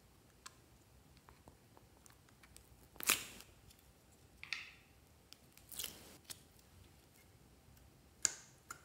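Thick pink slime being worked out of a soft plastic crown-shaped mould and handled: four short sticky peeling, squishing sounds, the loudest about three seconds in, with small clicks between them. The last comes near the end, as the slime is pressed into a tray of white slime.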